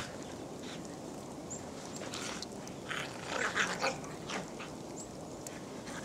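Kelpies playing in deep snow, with a cluster of short, noisy dog sounds about three seconds in over a steady background hiss.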